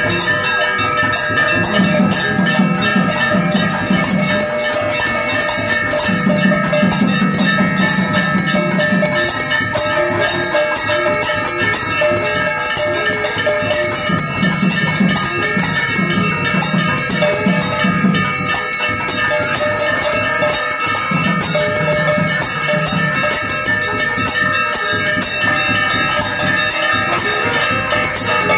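Temple bells ringing rapidly and without pause during an arti, a dense metallic clangour. A low pulsing beat comes in four spells of a few seconds each.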